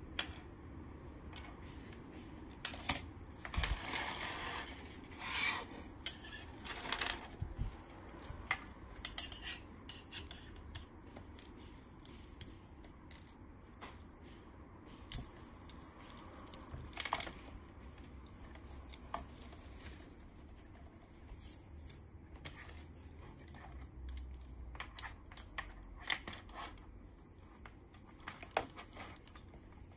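Plastic Lego Technic pieces clicking and clattering as they are handled and fitted together: irregular sharp clicks, with a denser stretch of handling noise around four to seven seconds in.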